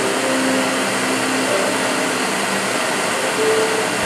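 Propane torch hissing steadily, with a cordless drill whirring as it spins a brass rifle case in the flame to anneal it.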